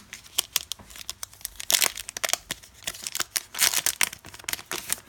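Plastic wrapper of a 2017 Donruss Optic Football card pack being torn open and crinkled by hand, a run of irregular crackles.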